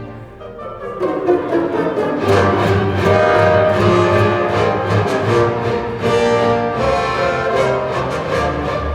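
Orchestral music with violins and cellos played back over a hi-fi loudspeaker system, swelling louder about a second in.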